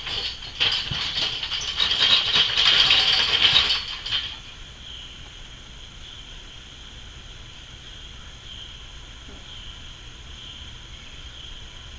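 A burst of rapid rattling and rustling for about four seconds, which stops abruptly. It is followed by a steady high drone of insects that pulses slowly.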